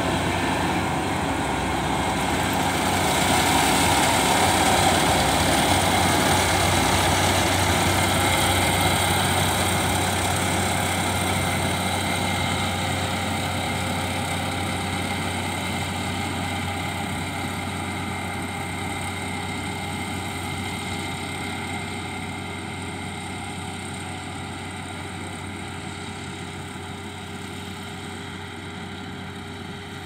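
Kubota tracked combine harvester's diesel engine and machinery running steadily while cutting rice. It is loudest a few seconds in, then fades gradually as it moves away.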